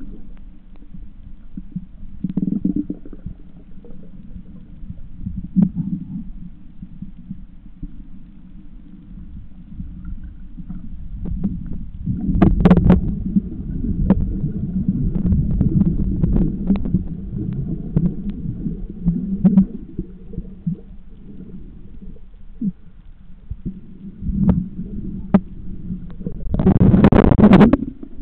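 Muffled underwater noise picked up through a camera's waterproof housing: a steady low rumble with occasional surges of bubbling, the loudest about twelve seconds in and just before the end, along with scattered small clicks.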